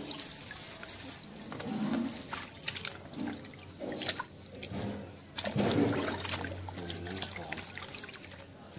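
Water sloshing and dripping in a basin as hands rub and rinse skinned frogs, in irregular splashes and drips, louder about halfway through.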